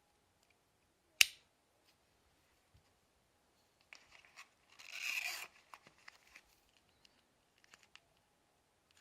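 Unboxing handling noise: one sharp click about a second in, then a couple of seconds of rustling and scraping, loudest about five seconds in.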